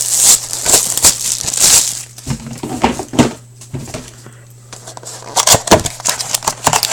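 Plastic wrapping crinkling and tearing, with handling clicks, as a box and packs of trading cards are opened. The rustling is loudest in the first two seconds, drops off around the middle and picks up again near the end.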